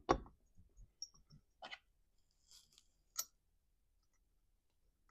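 Light metal clicks and knocks as the flywheel is seated back on the crankshaft of a Stihl MS250 chainsaw: two sharp knocks at the start, scattered faint clicks, a brief scrape about two and a half seconds in, and one sharp click a little after.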